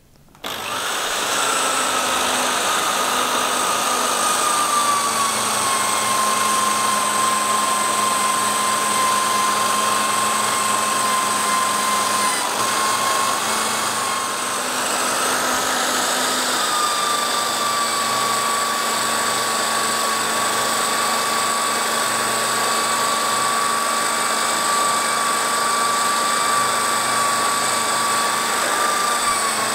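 Corded electric drill, clamped in a bench stand, running steadily and spinning a polishing wheel while a steel knife blade is held against it to buff it. Its whine sags slightly in pitch a few times, around a third of the way in and again near the middle.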